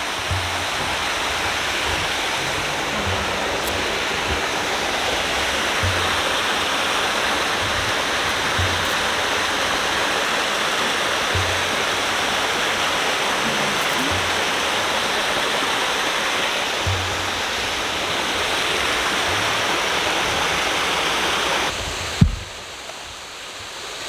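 Rushing water of a rocky mountain stream tumbling over small cascades, a steady rush that cuts off suddenly about two seconds before the end, followed by a single click.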